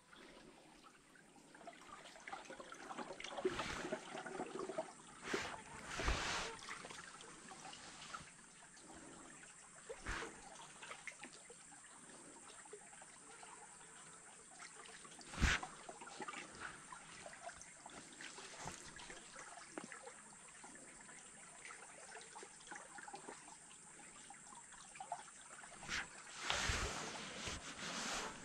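Faint trickling and splashing of water around a small paddled boat, with a few sharp knocks, the loudest about fifteen seconds in.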